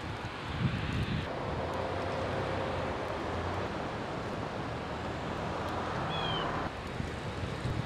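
A car running on a snowy road: a steady engine-and-tyre noise sets in about a second in and cuts off suddenly near the end, with wind buffeting the microphone at the start. There is a brief high squeak shortly before the noise stops.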